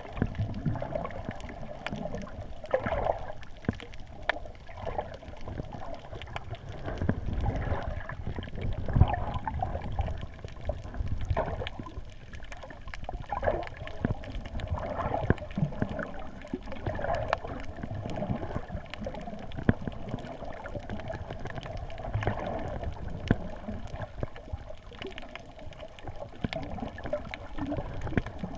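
Quadcopter's motors and propellers running, a wavering whirr that rises and falls with the throttle, over a rumbling, gusty wind noise on the microphone.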